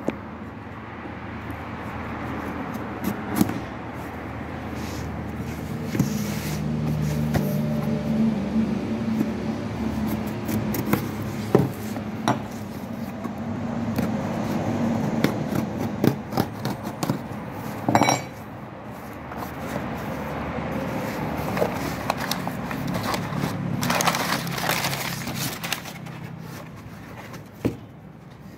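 A cardboard shipping box being cut open by hand: a small blade scraping and slitting the packing tape, with cardboard rustling and scraping, and a few sharp clicks and knocks as the flaps are pulled open. A low steady hum sits underneath for several seconds in the middle.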